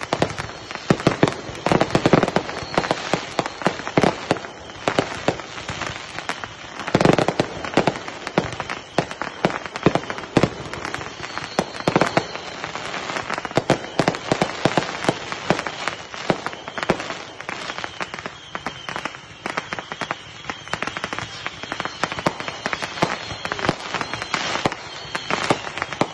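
Consumer fireworks finale: a nonstop barrage of rapid crackling and popping with frequent sharp bangs, heaviest about seven seconds in.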